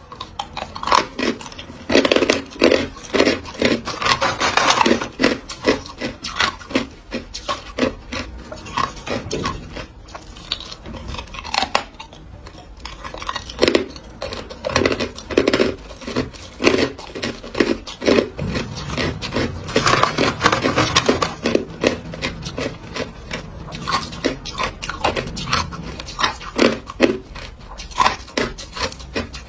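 Hard clear ice chunks being bitten and chewed close to the microphone: loud runs of sharp cracks and crunches, several a second, in bursts of a few seconds with quieter pauses between bites.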